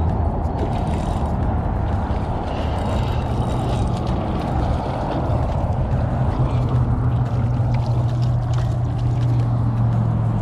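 Spinning reel being cranked steadily while a small snook is reeled in, over wind noise and a steady low hum that grows stronger about three seconds in.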